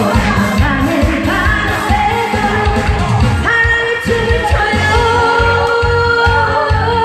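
Pop song with a steady beat and a sung melody line over the backing track.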